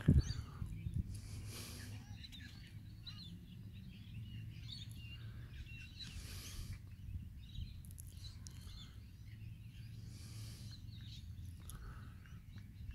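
Outdoor ambience: birds chirping here and there over a steady low rumble, with a few knocks in the first second.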